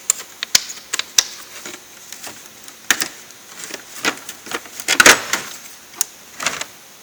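Metal hand tools clinking and clattering as they are handled in a steel toolbox drawer: a string of sharp clicks and knocks, loudest about five seconds in.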